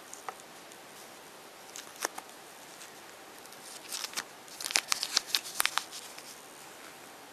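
A small plastic toy packet crinkling and being torn open, a dense run of sharp crackles in the second half. Before that, a few light clicks of small plastic toy bricks being set down on the table.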